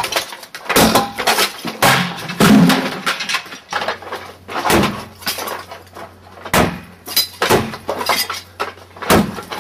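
A concrete wall being smashed: repeated hard blows, about one a second, each with the crack of breaking concrete and fragments clattering down.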